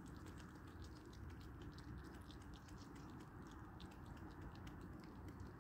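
Red fox chewing a chicken leg: faint, irregular crunching clicks, several a second, over a steady low background noise.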